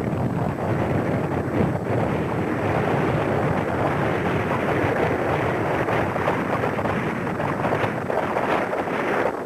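Steady, loud rushing noise without any clear pitch or rhythm, much like wind buffeting the microphone.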